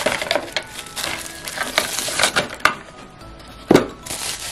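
Packaging and hard plastic parts being handled as a nail drill handpiece is unpacked: irregular rustles, clicks and taps, with the loudest knock a little before the end. Faint background music plays underneath.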